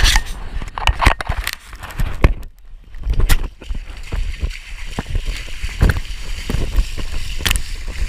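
Water splashing and sloshing close to a GoPro as a runner crawls under a cargo net through the wet course, with many sharp knocks and rubbing from the net and his body against the camera.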